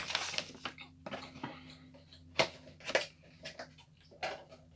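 A toy's cardboard box being picked up and handled: scattered taps, knocks and rustles of the packaging, sharpest about two and a half and three seconds in, over a faint steady hum.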